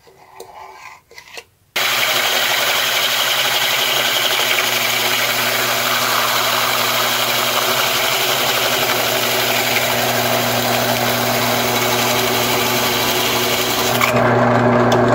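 Drill press running a 38 mm diamond hole saw through oiled 22-gauge sheet metal: a steady, loud grinding hiss over the motor's low hum, starting about two seconds in. Near the end the grinding stops and the motor hum is left, louder.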